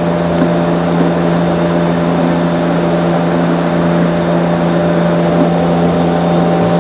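Steady low mechanical hum at one unchanging pitch, with a rushing noise over it.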